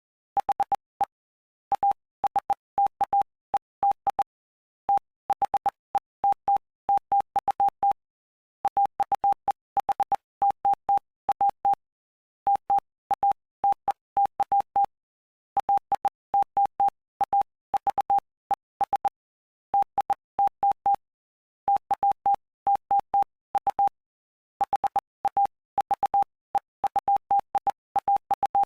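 Morse code: a single steady tone keyed on and off in short dots and longer dashes, with gaps between letters and longer pauses between words, with a faint click at each keying edge. It spells out the text of Mark chapter 8 for Morse practice.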